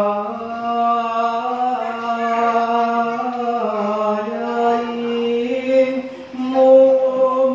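Slow chanting: a voice holding long sung notes that step up and down in pitch, with a short break just past six seconds before the chant comes back louder.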